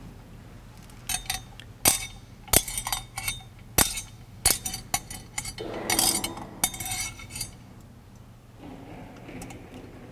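A run of sharp clinks of metal or glass, a dozen or more in irregular pairs over about six seconds, some ringing briefly.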